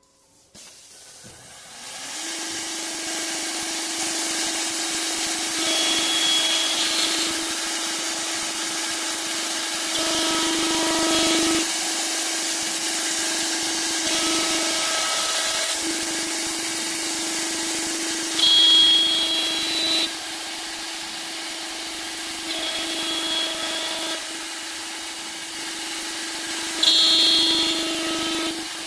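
Three-head CNC wood lathe carving flutes along turned wooden balusters. The cutter motors start up about two seconds in and then run with a steady whine over the hiss of cutting wood, with brief high squeals and louder cutting passes about two-thirds of the way through and again near the end.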